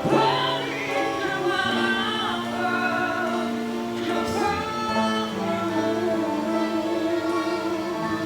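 A Malay pop ballad playing: male voices singing over sustained instrumental chords.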